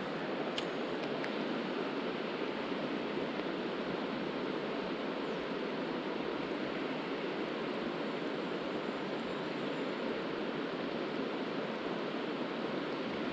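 Steady rush of river water running over a shallow, stony bed, with a couple of faint ticks in the first second or so.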